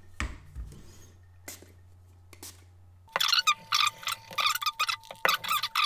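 Toothbrush scrubbing a circuit board wet with isopropyl alcohol to clean off solder flux: rapid scratchy bristle strokes begin about three seconds in, after a few light handling clicks.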